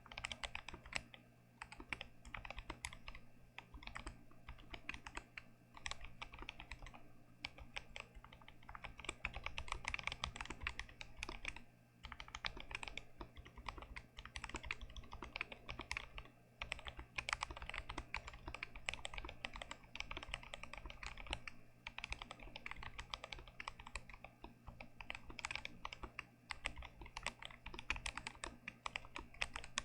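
Continuous typing on an unmodded GMMK Pro mechanical keyboard with Gazzew Boba U4T tactile switches: a dense, irregular stream of keystrokes with a few brief pauses between bursts.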